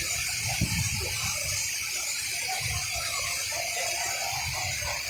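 Steady hiss with faint, indistinct voices in the background.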